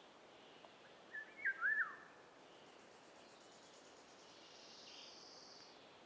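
Eurasian golden oriole singing one short fluting phrase of a few swooping, whistled notes, falling at the end, about a second in. A faint, high buzzy trill sounds in the background in the second half.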